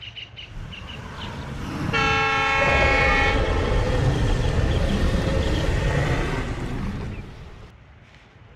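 Diesel locomotive horn giving one steady blast of about a second and a half, about two seconds in, over the rumble of the running train. The rumble fades away near the end.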